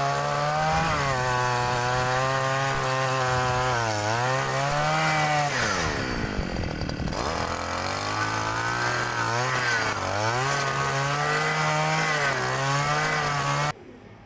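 56cc two-stroke engine of a petrol earth auger (hole digger) running hard with its 8-inch bit boring into the ground, the pitch sagging under load and dropping sharply about six seconds in before picking back up. The engine sound cuts off abruptly near the end.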